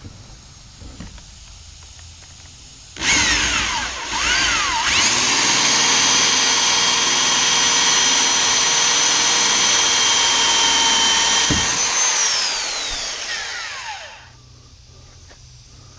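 Corded electric drill with a homemade mild-steel hole-saw bit boring into a weathered fence board. The motor spins up about three seconds in, dips and spins back up, then runs steady under load for several seconds. It winds down with a falling whine near the end.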